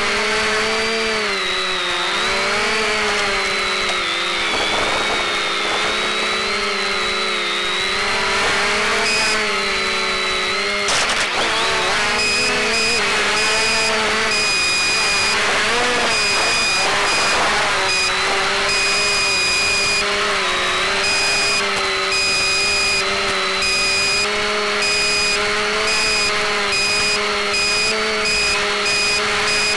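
SK450 quadcopter's electric motors and propellers whining, heard over the FPV video downlink's audio. Several pitches drift up and down together as the throttle changes. From about twelve seconds in, a higher electronic tone also switches on and off in short, irregular pulses.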